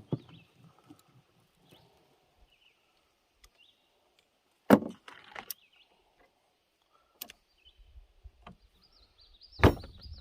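Metal clicks and knocks from a cap-and-ball revolver being loaded by hand: the cylinder is turned and the loading lever rams a round lead ball into the last chamber. There are a few separate sharp clicks, the loudest about five seconds in and near the end.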